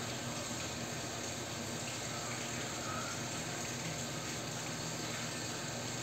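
Steady, even hiss-like background noise with no distinct events.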